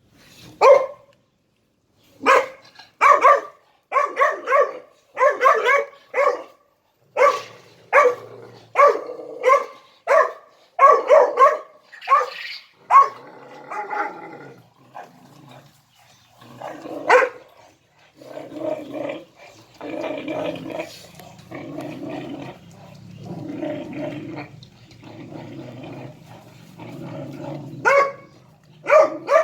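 Three-month-old puppy barking in a quick run of sharp barks, then growling in long low stretches from about halfway through, with a few barks again near the end.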